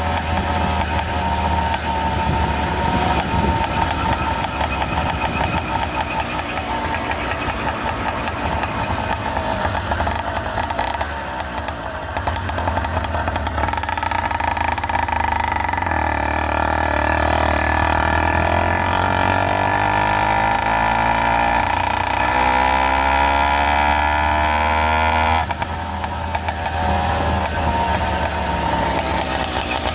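Small engine of a motorized bicycle running under way. Its pitch climbs steadily through the second half, then drops suddenly a few seconds before the end, and it carries on running.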